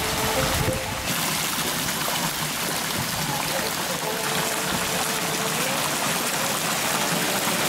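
Thin jets of water from a stone fountain's spouts splashing steadily into its pool.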